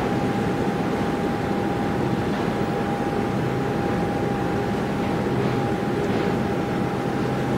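Steady drone of a passing river cargo barge's engine, with a thin steady whine running through it.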